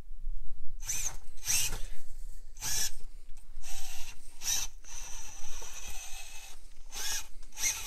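Brushless Furitek outrunner motor and gear drivetrain of a 1/24 micro RC rock crawler whirring in short throttle bursts, with one longer run of about a second and a half about five seconds in. The power delivery is super jumpy.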